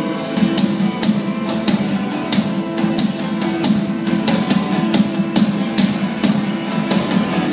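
Live band playing an instrumental passage: a strummed guitar over a steady drumbeat, with no singing.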